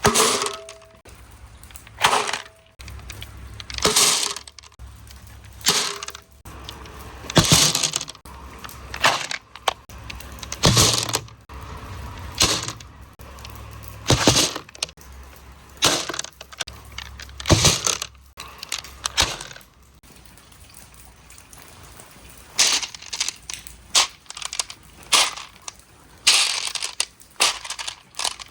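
Marbles clacking and rattling along a water marble run, in short sharp bursts every second or two, some with a brief ring. A steady low hum runs underneath until about two-thirds of the way through.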